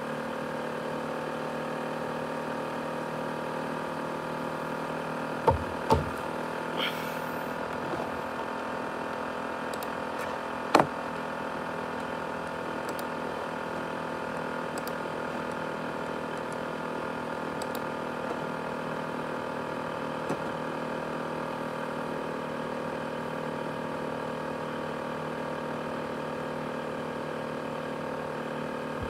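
ASUS X543UA laptop's cooling fan running steadily at high speed, a constant whirring hum with several steady whining tones, like a jet engine. A few sharp clicks break in, the loudest at about five and a half, six and eleven seconds in.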